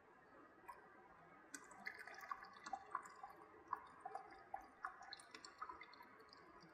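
Faint scattered drips of sodium sulfate solution falling from a tilted aluminium foil tray of aggregate into a plastic bucket, mixed with small clicks as the foil tray is handled. The solution is being drained off the soaked aggregate sample.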